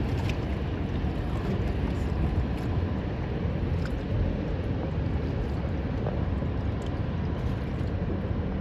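Steady low rumble on open water: the drone of a large cargo ship's engines passing close by, mixed with wind on the microphone.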